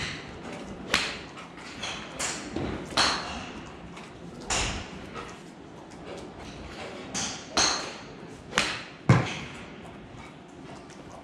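Golf iron shots at a driving range: clubs striking balls off hitting mats, about eight sharp irregular cracks, the loudest near the end, each with a short ring after it. The golfer in view is hitting a 7-iron, and the other strikes come from neighbouring bays.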